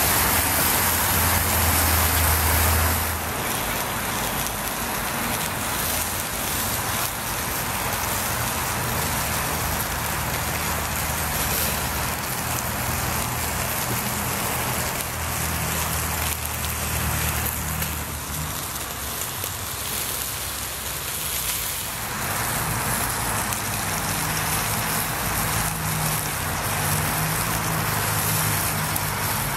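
Prosciutto-wrapped pork loin sizzling and crackling on a hibachi grill over hot charcoal, with a low steady hum underneath.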